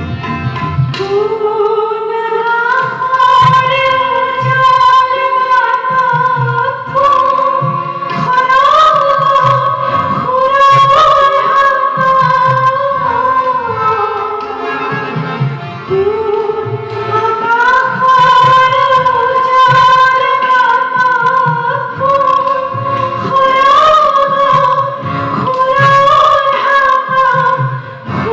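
A woman singing a slow song in long held, ornamented notes over drum accompaniment. The music is recorded.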